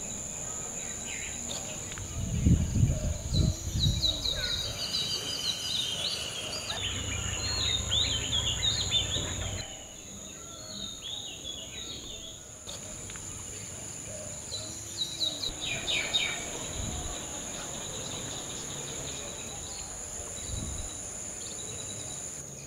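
Outdoor tropical ambience: a steady high-pitched insect drone, with birds chirping in bursts through the first half and again briefly later. A few dull low bumps come about two seconds in.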